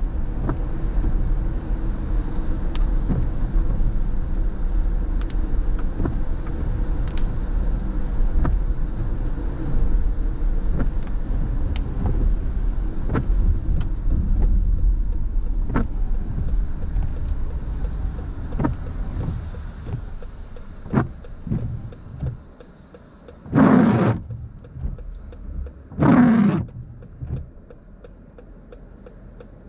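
Inside a car in the rain: steady tyre and road noise on wet pavement with the windshield wipers sweeping, the rumble fading as the car slows to a stop about two-thirds of the way through. With the car stopped, two louder wiper swishes across the wet glass stand out near the end, over a faint regular ticking.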